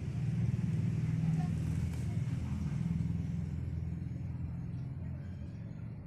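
Low rumble of a passing motor vehicle's engine, swelling in the first second and slowly fading away.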